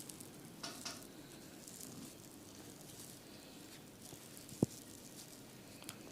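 Soft rubbing and rustling of massage strokes on skin and hair, with light scratchy swishes. A single sharp click about four and a half seconds in, and a smaller one near the end.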